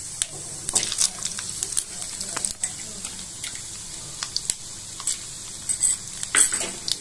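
Tempering seeds and dals crackling in hot oil in a kadai: a steady sizzle with frequent sharp pops. The crackling is the cue that the tempering is ready for the onions.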